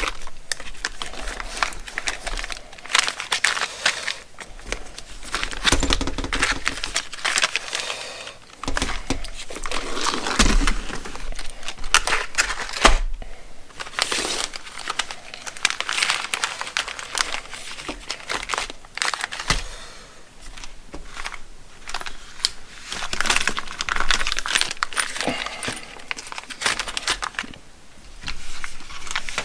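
Plastic bags and blister packs of small hardware being handled and crinkled, with light clicks and clinks of small metal nuts and washers.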